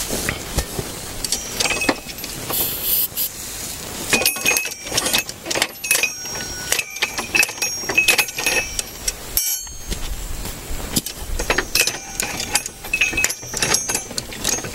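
Steel parts of a sediment-core extractor clinking and clanking as its levers and coupling pieces are fitted: repeated sharp metal knocks with brief ringing, in two busy spells.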